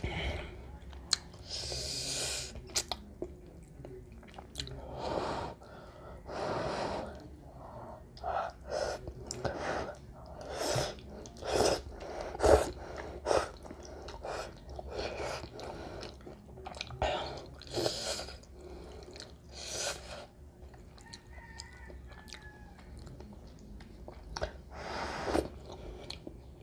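A person eating instant cheese ramen: a run of separate slurps of noodles and broth, with chewing and wet mouth sounds between them and a few sharp clicks.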